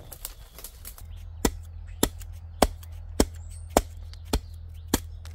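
Hand axe chopping into a thin piece of firewood held upright on a chopping block, cutting kindling: a run of about seven sharp, evenly spaced chops, a little under two a second, starting about a second and a half in.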